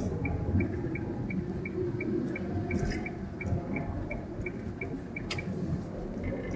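Inside a moving car's cabin: low engine and road rumble with a steady, high-pitched tick about three times a second from the turn-signal indicator.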